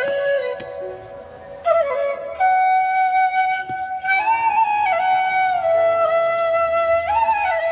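Background music: a solo flute playing a slow melody of long held notes with ornamented turns.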